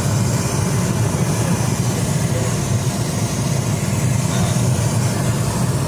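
High-pressure gas burner (kompor jos) burning under a stock pot, a steady low rumble.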